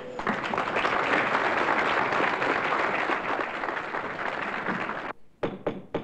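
Audience clapping steadily, the applause cut off abruptly about five seconds in.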